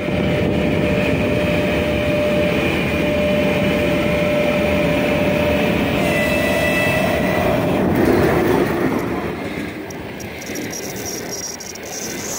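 Electric passenger trains running past close by: a continuous rumble of steel wheels on the rails with a steady whine through the first part, swelling about two-thirds of the way through, then easing, with a thin high squeal of wheel on rail in the last couple of seconds.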